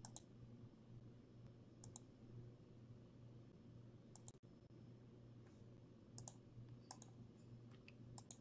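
Faint clicks of a computer mouse, a few spaced a second or two apart and some in quick pairs, over a low steady electrical hum.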